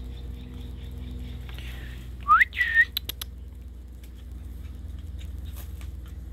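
A person whistling: a quick upward-sliding note followed by a short level note, loud and close by, a little over two seconds in.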